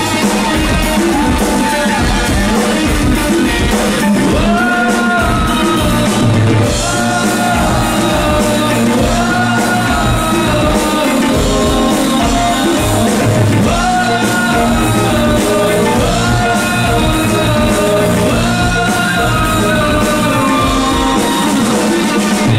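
Live performance of a Hindi film song: a flute plays a held, gliding melody in repeated phrases over tabla and a steady backing beat.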